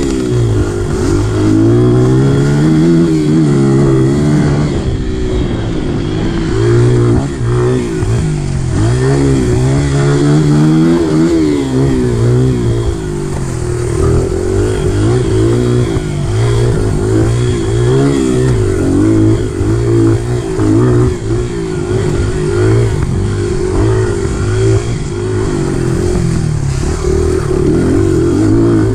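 Youth dirt bike engine revving up and down as it is ridden along a dirt trail, its pitch climbing and dropping every second or two with the throttle.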